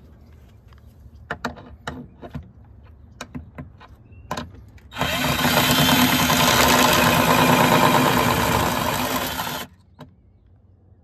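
Black+Decker cordless drill with a long screwdriver bit, backing a screw out of a subwoofer port's flange. A few clicks and taps as the bit is set, then the drill runs steadily for about five seconds and stops abruptly.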